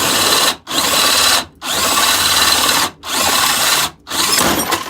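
Power drill boring with a new Milwaukee drill bit, run in five bursts of about half a second to a second and a half, with short stops between them.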